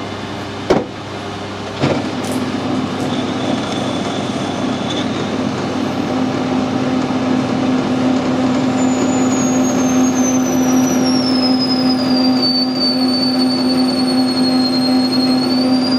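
Metal lathe starting up with a click about two seconds in and then running steadily with a low hum. From about halfway, an 8 mm machine reamer fed into a brass bush in the chuck sets up a high-pitched squeal that slides slowly down and rises again near the end.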